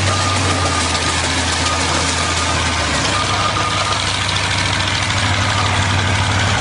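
John Deere tractor's diesel engine running steadily under heavy load, straining against a steam traction engine in a tug-of-war.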